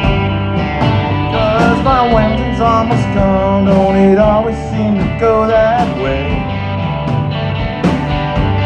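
Live rock band playing a song: electric guitars, electric bass and drums, with a melody line that bends up and down in pitch.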